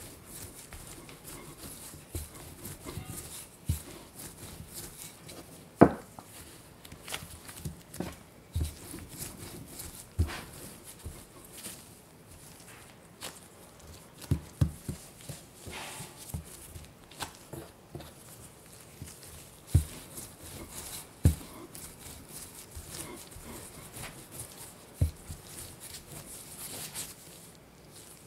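Wooden rolling pin rolling and pressing pie dough on a bamboo cutting board, with scattered dull knocks as the pin meets the board, the loudest about six seconds in. Later the dough sheet is folded over by hand, with soft rubbing and a few more thumps.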